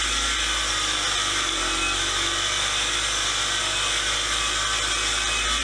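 Motor-driven wire wheel running steadily, wire-brushing the Erie vise's steel parts (jaw, nut, collar, pin and Acme screw).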